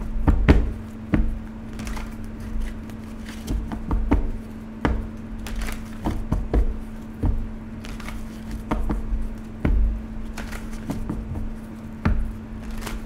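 A deck of tarot cards being shuffled by hand: irregular soft slaps and clicks as the cards are cut and pushed together, over a steady low hum.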